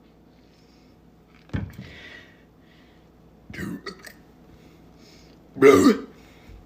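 A person burping three times, about a second and a half, three and a half and five and a half seconds in. The last burp is the loudest.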